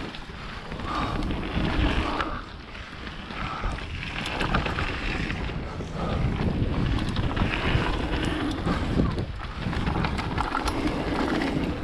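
Mountain bike ridden fast on a wet trail: wind buffets the microphone over a steady rumble of tyres on dirt, with frequent small knocks and rattles from the bike. The noise swells and eases every few seconds.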